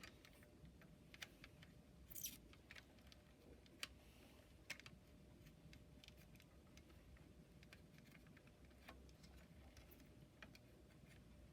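Near silence with faint, scattered small clicks of tools working an old capacitor's lead loose from a circuit board while desoldering it.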